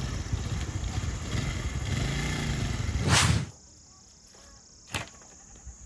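Small motorcycle engine running and revving as it rides over loose river stones. About three seconds in a swoosh transition cuts it off, leaving quiet outdoor ambience with a faint snap.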